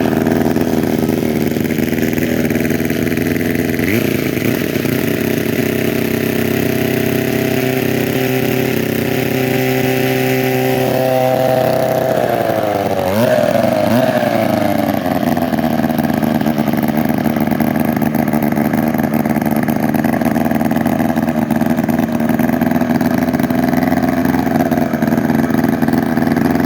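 1943 Mercury twin-cylinder 245cc chainsaw engine, governor-limited, running steadily and loud, with brief swings in pitch about four seconds in and again around thirteen seconds in.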